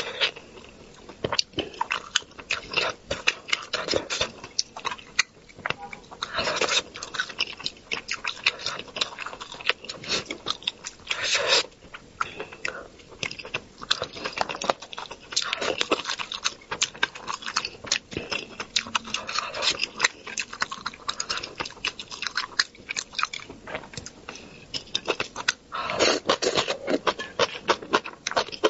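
Close-miked chewing and mouth smacking as spicy braised fish and soybean sprouts are eaten: a dense run of small wet clicks and crunches, going on throughout.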